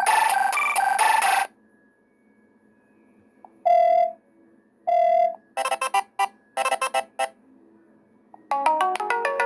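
Wileyfox Swift 2 Plus smartphone ringtones playing one after another. A synth melody cuts off about a second and a half in, followed by two single beeps, a quick run of short tones, and a new chiming melody starting near the end.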